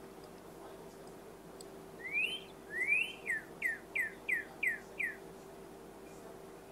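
Male northern cardinal singing one song phrase: two rising whistled slurs, then six quick down-slurred notes at about three a second. It starts about two seconds in.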